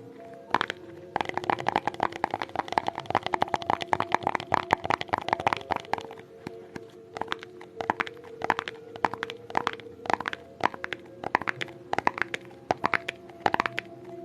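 ASMR tapping on a hard object: a quick flurry of rapid taps in the first half, then slower, spaced single taps.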